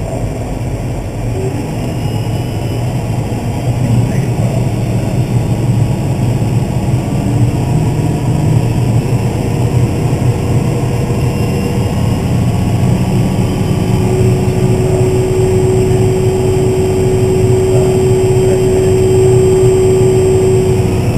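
Case IH Magnum 305 tractor's diesel engine running steadily, heard from inside the cab, growing louder about four seconds in as it picks up. A steady whine joins the engine drone about two-thirds of the way through.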